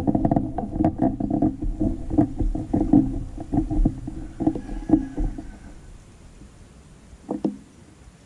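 A small engine running with a stack of steady tones and a rapid rattle, fading away over about five seconds. A brief, louder sound follows near the end.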